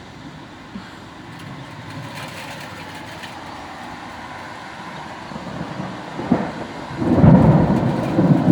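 Steady rain hiss from a thunderstorm, then about seven seconds in a loud, low rolling rumble of thunder that keeps going.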